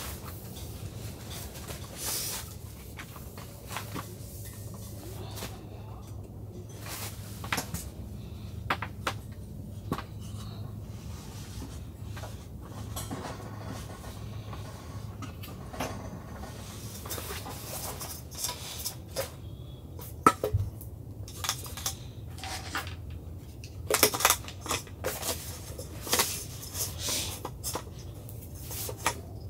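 Scattered knocks and clinks of camping gear being handled, with a sharp click about two-thirds of the way in and a busier patch of clatter near the end. Wooden table boards are being set around a kerosene heater, and a gas burner is being handled in its mesh case. A steady low hum runs underneath.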